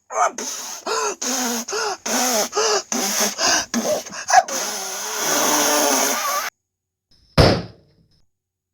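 Vocal sound effects for a frog puffing itself up and bursting: a person forces out about eight short strained puffs in a row, then a long hiss of breath. After a brief silence comes a single sharp pop, the burst.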